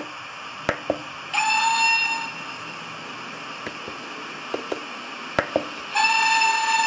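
Model GWR steam locomotive's sound unit standing: a steady hiss with a few sharp clicks, and two steady whistle blasts, a short one about a second in and a longer one starting near the end.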